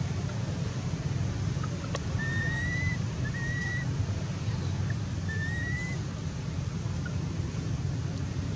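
Infant macaque giving thin, high whistle-like cries, three short calls each rising slightly in pitch, over a steady low wind rumble on the microphone.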